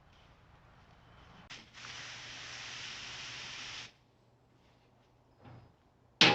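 A steady hiss lasting about two seconds that cuts off abruptly, then a sharp knock with a short ring near the end.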